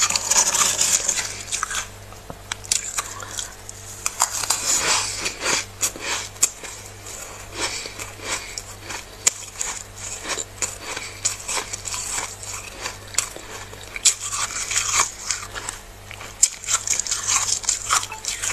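Flaky freezer frost crunching and crackling in repeated bursts of sharp clicks as it is scraped and eaten, over a faint steady low hum.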